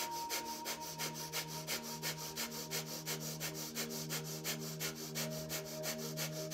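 Rapid, forceful breathing through the nose ('breath of fire'): short sharp exhales at about four a second, each driven by a pull of the belly, over a few soft held notes of background music.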